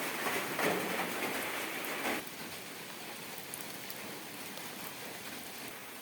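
Steady rainfall hissing. It is louder and fuller for the first two seconds, then drops suddenly to a softer, even patter.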